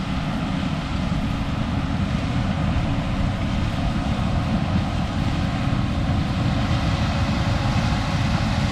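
Heavy diesel farm machinery running steadily under load, a constant low rumble with a dense noise of mechanism on top.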